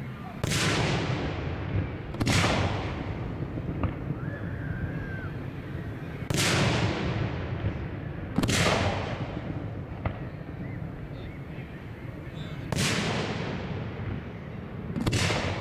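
Aerial firework shells bursting overhead, six booms over about fifteen seconds, mostly in pairs about two seconds apart. Each boom trails off in a long echo.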